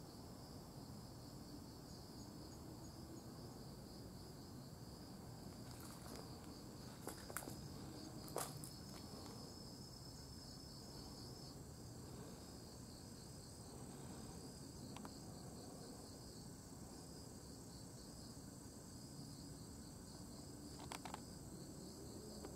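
Insects chirping steadily in a faint, high-pitched outdoor chorus, with a few light clicks in the middle and near the end.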